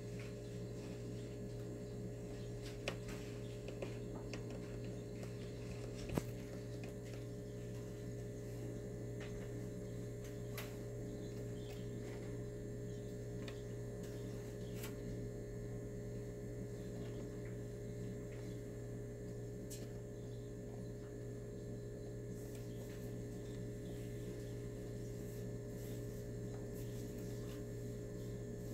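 Steady low electrical hum, with a few faint clicks and a sharper tick about six seconds in.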